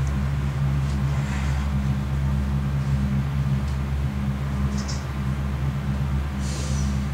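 A low, steady droning rumble, the sustained drone of the dance score, with a few faint brief rustles over it.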